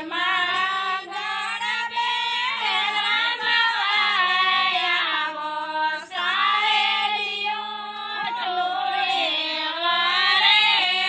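A group of girls and women singing a traditional garba folk song together, with a steady low held note beneath the melody.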